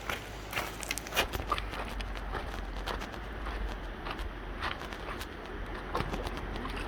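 Footsteps, irregular and unevenly spaced, over a steady low rumble.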